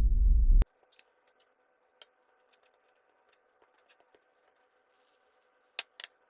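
A low throbbing sound stops abruptly under a second in. Then, over a faint steady hum, come scattered light clicks and taps, with two sharper clicks near the end.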